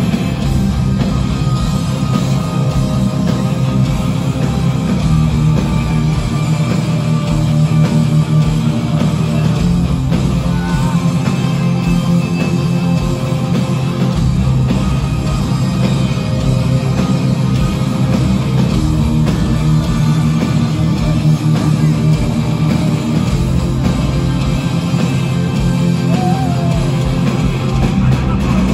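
Metal band playing live and loud: distorted electric guitars, bass and drums, heard from within the crowd.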